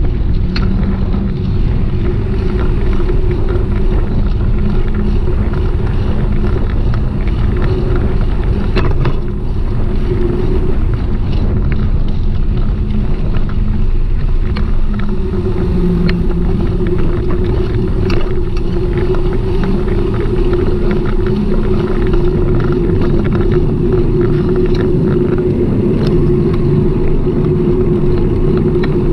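Steady road noise of a bicycle ride through city streets: low rumble with a steady hum and a few sharp clicks or rattles.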